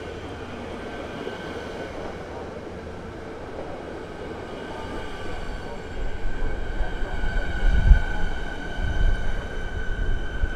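Siemens Nexas electric multiple unit moving past along a station platform, with a steady high whine. A low wheel rumble grows louder from about six seconds in, with a heavy thump near eight seconds.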